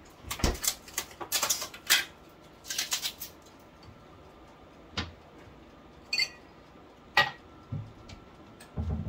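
Kitchen-counter handling noises: clusters of clatters and scrapes in the first three seconds, then a few single knocks and a glass clinking with a short ring around six and seven seconds in. Soft low thumps near the end.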